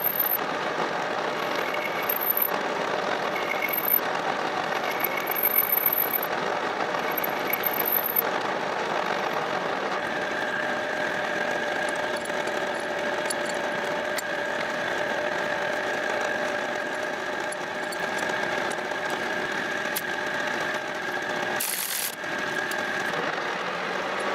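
Metal lathe running, its boring bar cutting inside the jaws of a small lathe chuck to true up the worn jaws. Intermittent high-pitched cutting squeal over the first several seconds, then a steady machine whine.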